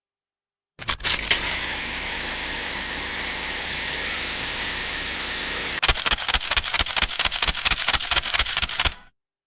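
Camera mechanism sound effect: a few sharp clicks, then a steady hiss for about five seconds, then a fast run of clicks, about seven a second, that stops suddenly.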